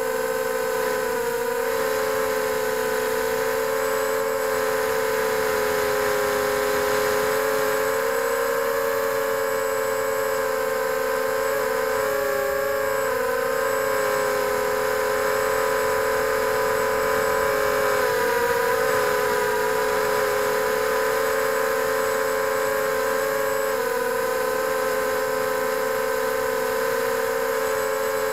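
FPV drone's electric motors and propellers, heard from its onboard camera, making a steady buzzing whine. The pitch wavers with throttle and dips briefly about twelve and eighteen seconds in.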